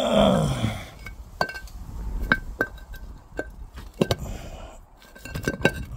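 Pieces of a broken paving slab knocking and clinking against each other as they are handled and rocked, a series of sharp clicks, some with a short ringing tone. It opens with a brief low voice-like sound that falls in pitch.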